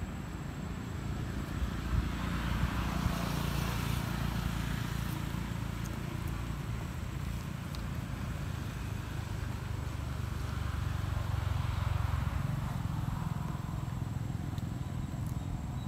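Low rumble of road traffic going by, swelling and fading twice as vehicles pass.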